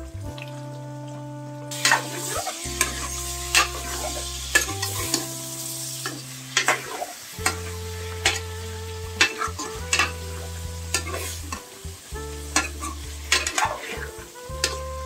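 Chicken pieces frying in an aluminium pot while a metal spoon stirs them: a sizzling hiss starting about two seconds in, with repeated sharp clicks of the spoon against the pot. Background music plays underneath.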